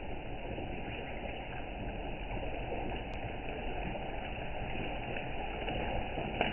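Steady low bubbling hiss from a pot of dal simmering on a stove, as hot tempering oil (tadka) is poured into it.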